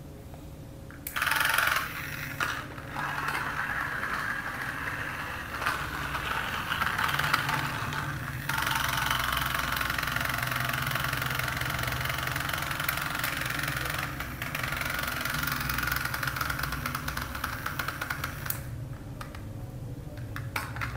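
Small battery motor and plastic gears of a toy block truck running with a whirring rattle. It starts about a second in and cuts off shortly before the end, with a few brief dips.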